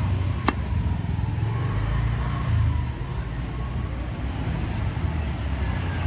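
Steady low rumble of passing road traffic, with a single sharp click about half a second in.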